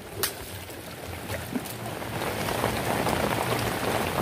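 Steady rain falling, a dense patter that grows louder about two seconds in. A single short click sounds just after the start.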